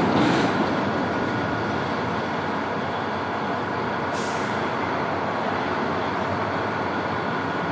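Steady rumble of passing vehicles, easing off in the first second, with a short hiss about four seconds in.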